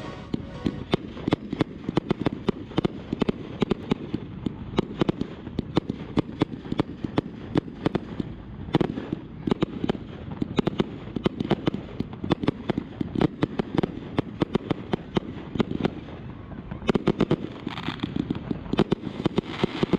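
Fireworks display going off: a dense, rapid run of sharp bangs and pops, several a second, with a heavier flurry near the end.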